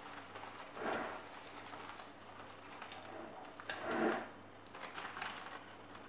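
Cling film crinkling and rustling faintly as it is stretched and pressed over a bowl, with two brief louder rustles, about a second in and around four seconds in.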